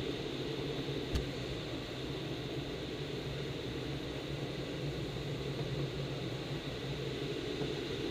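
Steady rush of air over a glider's canopy heard inside the cockpit in flight, with a low steady hum underneath and a faint click about a second in.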